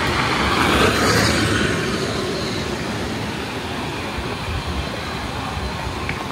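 Steady rushing noise of vehicle travel and wind, a little louder during the first two seconds.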